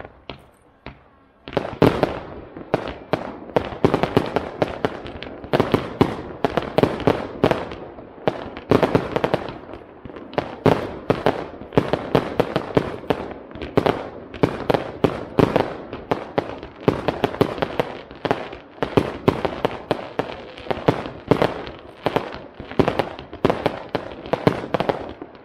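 Aerial fireworks display: a few single bangs, then from about a second and a half in a dense, unbroken barrage of bursting shells, several bangs a second.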